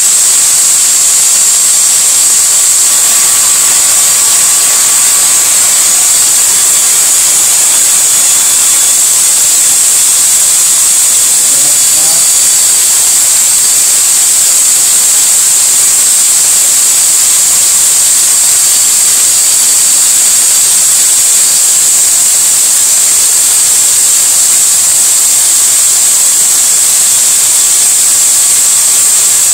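Electric drill running steadily, spinning an engine valve while a razor blade scrapes carbon off it: a loud, steady hiss with a faint whine.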